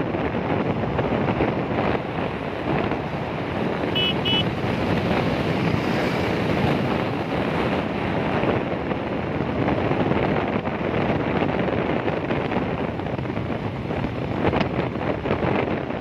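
Wind rushing over the microphone of a moving motorcycle, a steady loud rush with road and vehicle noise beneath it. Two short high beeps about four seconds in.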